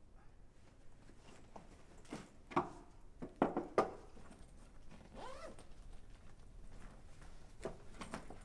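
A backpack being handled: a few sharp knocks as it is set down on a small wooden table, then its zipper pulled open in short strokes.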